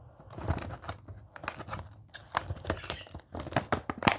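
Stiff plastic blister packaging of a snake fidget toy being opened by hand, with irregular crackles and sharp clicks.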